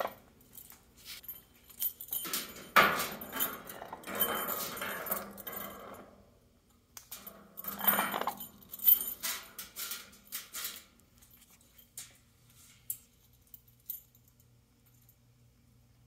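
Bell rattling and jingling inside a plastic pet-toy ball as an Amazon parrot picks it up with its beak and pushes it over a plastic cage tray, in irregular bursts of clicks and clatter. After about eleven seconds it goes quiet apart from a few single clicks.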